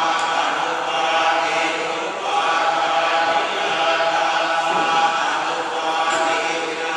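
Theravada Buddhist monks chanting together in unison: a continuous, steady chant of many voices, with short dips between phrases.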